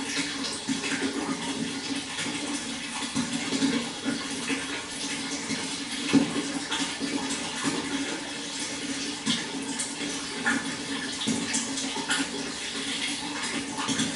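Water flowing steadily, with small irregular splashes and gurgles throughout.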